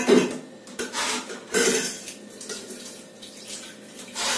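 Kitchenware being handled with water splashing: about four short clattering, swishing bursts, the loudest right at the start.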